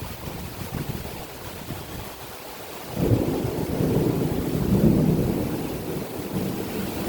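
A roll of thunder over steady rain. The thunder starts fairly suddenly about three seconds in, swells, then slowly dies away.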